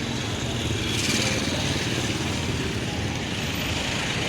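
Street traffic noise with a small motorbike engine running close by, swelling louder about a second in.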